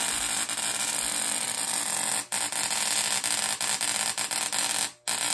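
Homemade 40-watt spark-gap Tesla coil, fed by a 5,000-volt neon sign transformer, running and throwing purple streamers: a steady, loud hissing buzz from the spark gap and arcs. It cuts out briefly twice, about two seconds in and just before the end.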